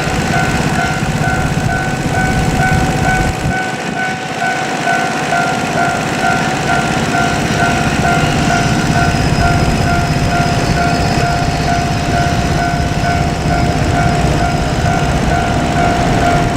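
A level-crossing warning bell rings its repeating electronic two-tone chime over the steady rumble of a freight train hauled by a JR Freight EF510 electric locomotive rolling past. The rumble dips briefly about four seconds in.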